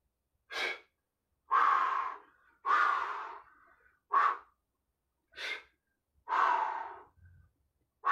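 A man's forceful breathing through the mouth during slow single-arm kettlebell overhead presses: about seven separate breaths, some short and sharp and three longer and drawn out, with quiet gaps between.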